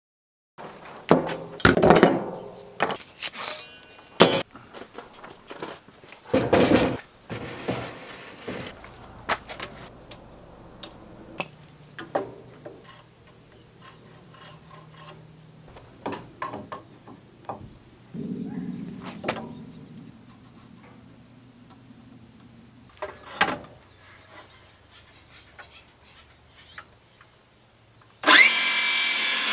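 Scattered knocks, clunks and scrapes of hand tools and lumber being handled and marked, then near the end a cordless circular saw starts up loud and steady with a high whine as it goes into a timber beam.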